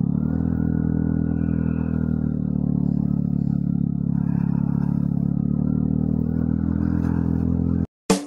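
Vespa Primavera scooter's single-cylinder four-stroke engine running as it rides along, rising in pitch over the first second and then holding a steady speed. It cuts off abruptly near the end.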